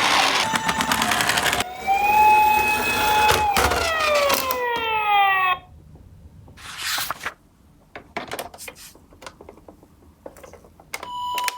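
Ambulance siren over toy ambulance minicars rolling on a cardboard slope. At first there is rolling and rattling. Then the siren holds one tone and glides down in pitch until it cuts off about halfway through, leaving a few seconds of quiet with small taps and clicks. Near the end a two-tone hi-lo ambulance siren (pii-po) starts again.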